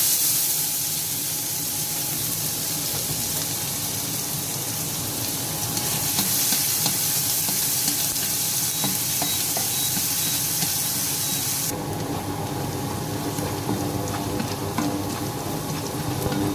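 Food sizzling in hot oil in a pan, a dense steady hiss. About twelve seconds in it cuts abruptly to a softer sizzle broken by scattered light clicks.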